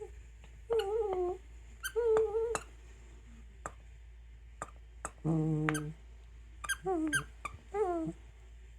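A dog making strange squeaky, wavering vocalizations while playing with a squeaky toy, mixed with the toy's squeaks: about five short pitched squeals spread over several seconds, with a few sharp clicks between them.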